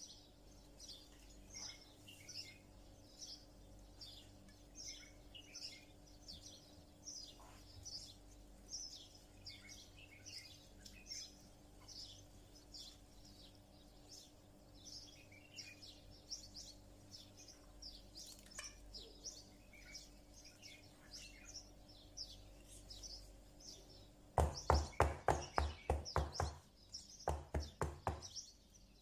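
Small birds chirping and tweeting over and over, two or three short calls a second, over a faint steady hum. Near the end come two quick runs of knocks, about five or six a second, louder than the birds.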